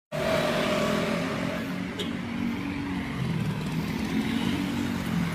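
Motor vehicle engine running with steady road noise, with a single brief click about two seconds in.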